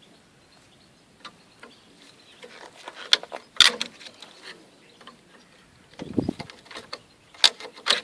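Metal clicking and scraping as the spring clip is worked off a brake caliper, in scattered sharp clicks with a duller knock about six seconds in.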